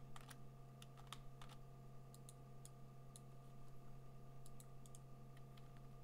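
Faint scattered clicks of a computer mouse and keyboard: a quick cluster in the first second and a half, then lighter, sparser ticks. A steady low electrical hum runs underneath.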